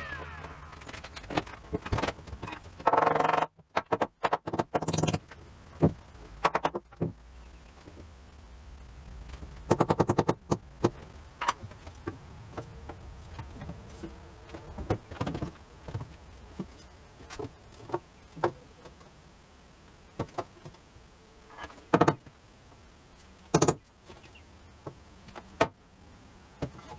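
Intermittent building work: scattered knocks and clicks of tools and lumber, with two short buzzing bursts about 3 and 10 seconds in.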